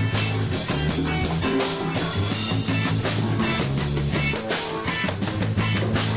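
Loud rock music with guitar, a steady drum beat and bass notes that change every second or so.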